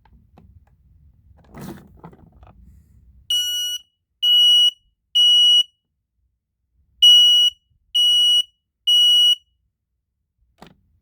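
Kidde 0916 battery-powered smoke alarm sounding in test: a loud, high-pitched beep in the temporal-three pattern, three beeps, a pause, then three more.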